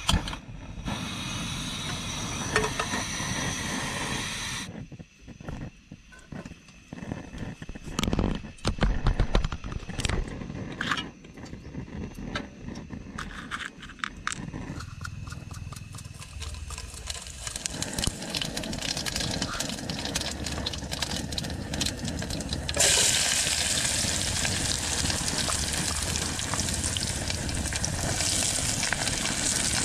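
A portable butane cartridge stove clicks as it is lit, and its burner hisses for a few seconds. Scattered clicks and taps of handling follow. About two-thirds of the way through, a loud steady sizzle starts as sliced onions and peas go into the hot pot.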